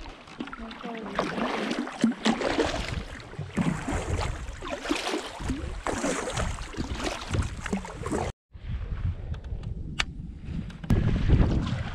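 Kayak paddle strokes splashing and water lapping against a sea kayak's hull, irregular and uneven. About eight seconds in it breaks off briefly, then goes on more quietly with a few sharp clicks. Wind buffets the microphone near the end.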